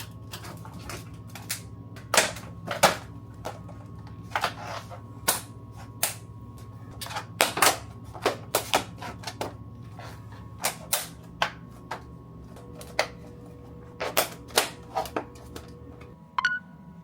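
Irregular sharp clicks and clacks of hard objects being handled and set down, about one or two a second, over a steady low hum.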